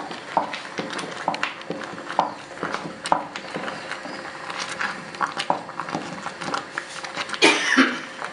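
A wooden spoon stirring thick, bubbling maize-meal porridge (sadza) in a metal pot: irregular knocks of the spoon against the pot and soft plops, with a louder scraping burst near the end.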